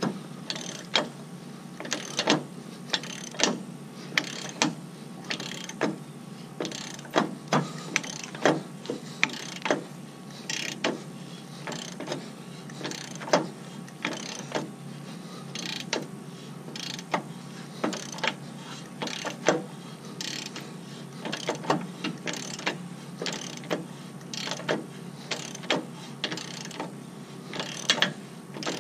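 Ratchet wrench clicking in short irregular runs as the bolts of a trailer hitch are turned.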